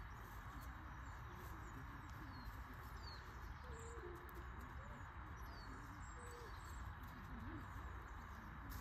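Faint bird calls, a few low wavering calls and some brief high chirps, over a steady background hum of outdoor noise.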